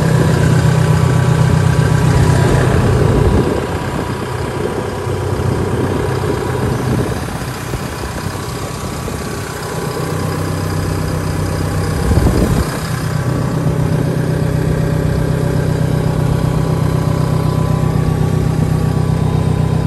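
Caterpillar D5K2 XL dozer's four-cylinder diesel engine idling steadily, a little softer for a stretch in the middle, with a brief thump about twelve seconds in.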